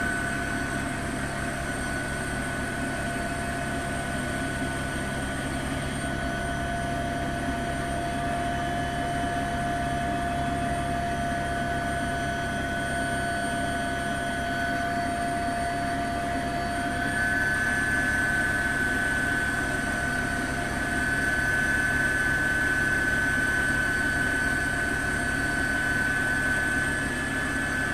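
Helicopter heard from on board: a steady drone of engine and rotor noise with a constant high-pitched turbine whine.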